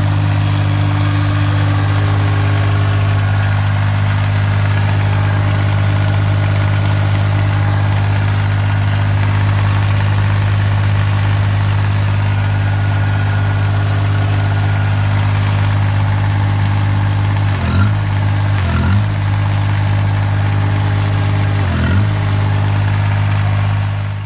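A vehicle engine running with a steady low drone. Its pitch dips briefly twice about three-quarters of the way through and once more near the end, and the sound cuts off abruptly.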